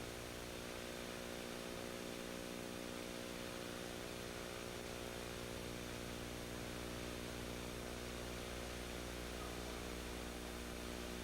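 Steady electrical hum with tape hiss from the VHS transfer, unchanging throughout, with no other sound events.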